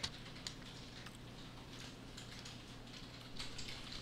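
A few faint, irregular computer keyboard key presses over a steady low room hum.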